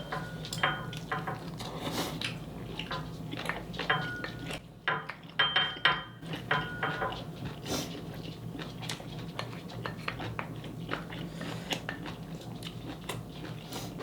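Metal cutlery clinking, tapping and scraping against a pan and dishes while eating, some strikes leaving a short ring. A low steady hum runs underneath.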